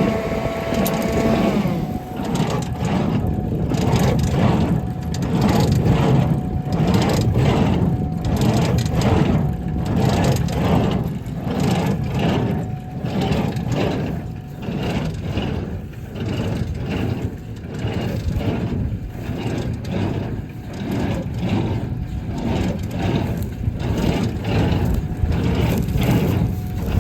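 Tractor engine running while a Massey Ferguson 1840 in-line small square baler works, its plunger knocking in a steady rhythm of about one and a half strokes a second.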